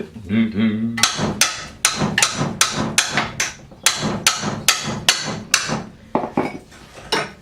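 Hammer blows on a seized, rusted suspension bolt, a rapid series of about sixteen sharp strikes, two to three a second, to try to drive it free.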